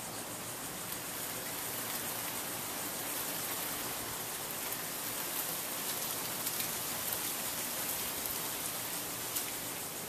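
1979 Casablanca Columbia II ceiling fan running, its wooden blades moving air with a steady, airy hiss, with a single short click near the end.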